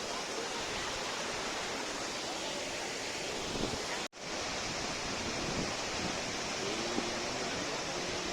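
Steady rushing of a waterfall, with a momentary complete dropout about four seconds in.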